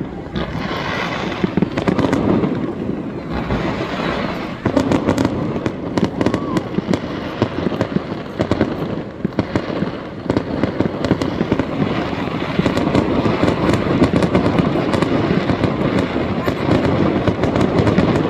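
Fireworks display: a loud, dense, unbroken barrage of bursts and crackling, many reports a second.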